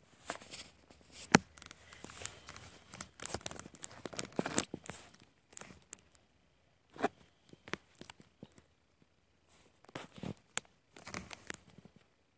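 Close handling noise: irregular rustling and crinkling with a few sharp clicks, as the phone filming him is shifted in his hand and rubs against his fleece jacket. It is busiest at the start, thins out in the middle, and picks up again near the end.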